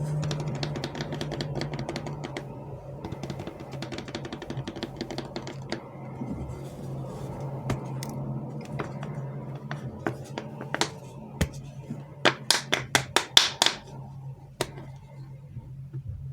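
Candy and chocolate packaging being handled: dense crinkling and crackling at first, then scattered sharp clicks, and a quick run of about ten taps a little past two-thirds through. A steady low hum runs underneath.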